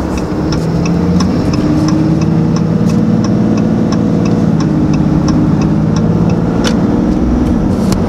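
6.7L Cummins turbo-diesel pulling hard under acceleration, heard from inside the cab as a steady engine drone while boost builds to about 17 psi. With the stock foam-lined intake baffle, little turbo whistle comes through.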